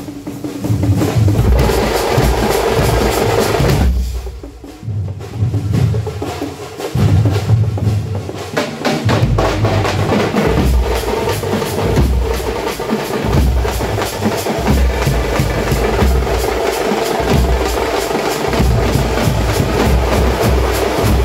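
Tamate frame drums beaten fast by a festival drum group, a dense rolling rhythm over deep irregular thuds. The drumming drops back briefly about four seconds in, then builds up again.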